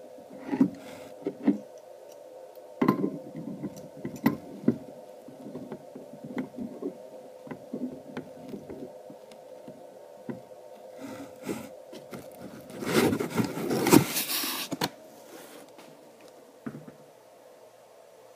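Stainless steel pipe fittings and ball valves being handled and screwed onto a wort pump's head: scattered metallic clicks, knocks and scraping against a wooden board, with a louder stretch of scraping and rustling about two thirds of the way through. A steady hum runs underneath.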